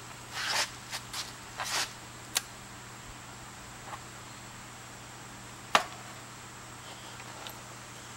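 A few short scraping sounds and clicks in the first couple of seconds, then one sharp knock a little before six seconds in, over a steady low hum.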